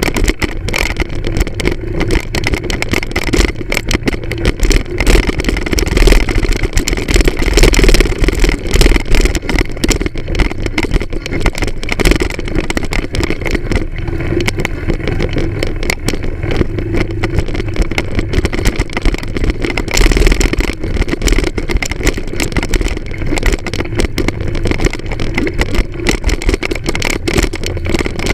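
Moped engine running while the bike rides a bumpy dirt track, with constant clatter from the rough ground. A louder low rumble swells a few seconds in and again about two-thirds of the way through.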